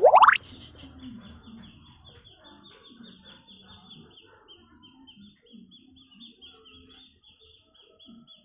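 Small bird chirping rapidly and steadily, about five high chirps a second, with faint low clucking-like sounds underneath. A loud, quickly rising squeal comes right at the start.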